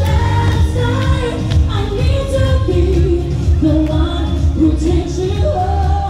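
Amplified pop music with singing over a heavy bass.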